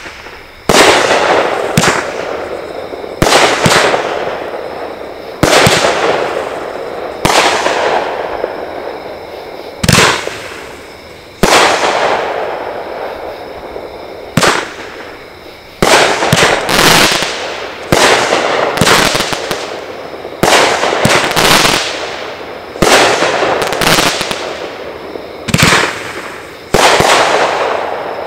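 Pyro Planet Spitfire, a 500-gram consumer firework cake, firing shot after shot, about twenty in all, sometimes two in quick succession. Each shot is a sharp report followed by a rush of noise that fades over a second or two.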